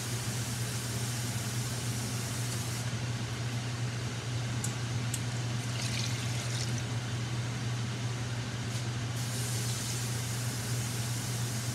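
Stewing oxtails simmering in a wide pan over a steady low hum and hiss. About six seconds in, water is poured from a glass jar into the pan, after a couple of light clicks.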